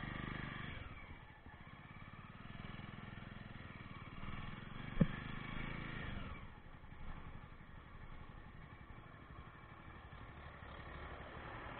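Jawa 42 motorcycle's single-cylinder engine running steadily under way, with one sharp knock about five seconds in.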